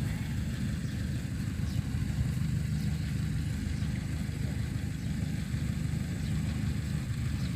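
Kubota DC93 combine harvester's diesel engine running steadily, a low, even rumble.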